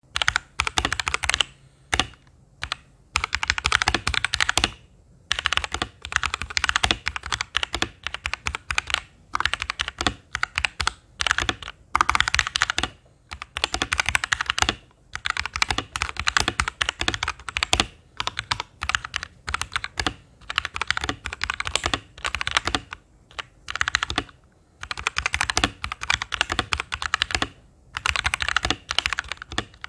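Typing on an FL Esports F12 mechanical keyboard with lubed Kailh Box Red linear switches, every key bottomed out, in quick runs of one to two seconds broken by short pauses.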